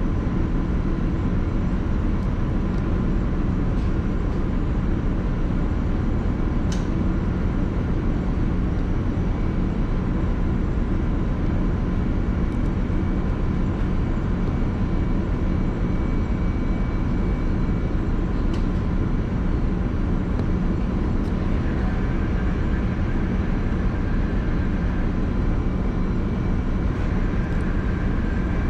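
Steady low drone of a ship's running machinery with faint steady whining tones over it. A couple of light clicks come from a small screwdriver on the screws of the detector's metal casing.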